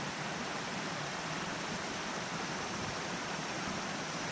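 Steady, even rushing of river water washing against a concrete bank, with no separate splashes.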